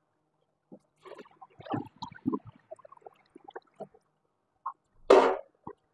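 Cooking water being drained from a stainless-steel pot into the kitchen sink: scattered splashes, drips and light clinks for about three seconds, then one short, louder splash or clatter about five seconds in.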